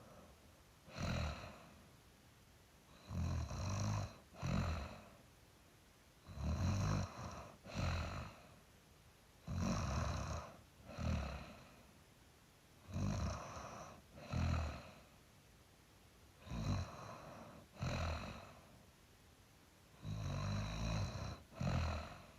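A person snoring in sleep, a rattling snore followed about a second later by a shorter one, the pair repeating every three to four seconds.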